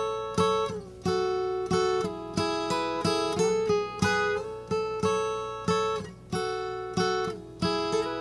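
Acoustic guitar playing an instrumental tune in a steady rhythm, with a chord struck about every half second and each one left to ring.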